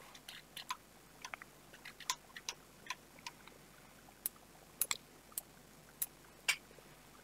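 Faint, irregular clicking of a computer mouse and its scroll wheel, a couple of dozen short clicks spread over several seconds, as the on-screen drawing is zoomed and panned.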